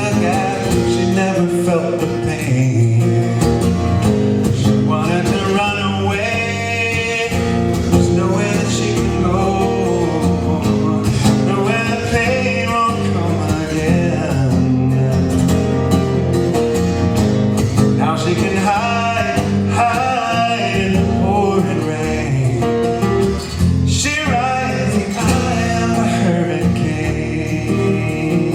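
Live folk song: acoustic guitar played with a man's voice singing.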